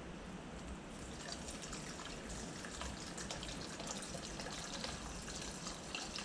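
Acetone trickling from a metal can into a plastic mixing cup of paint to thin it. A thin, steady pouring sound that picks up about a second in.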